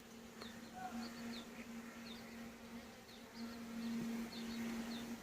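Honeybees buzzing in a steady hum that grows louder about three and a half seconds in, with faint short high chirps over it.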